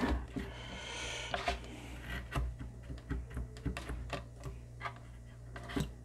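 A plastic speaker terminal cup being worked loose and pulled out of a bookshelf speaker's rear panel: irregular clicks and knocks with some scraping, over a steady low hum.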